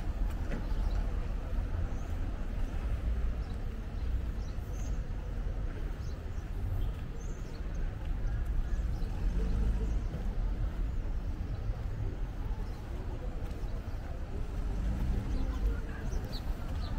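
Outdoor street ambience on a walk: a steady low rumble with faint distant traffic and voices.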